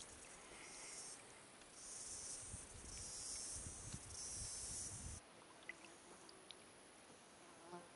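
Faint high-pitched insect buzzing that comes and goes in pulses about a second long, over low rumbling on the microphone; both stop abruptly about five seconds in, leaving a few faint clicks.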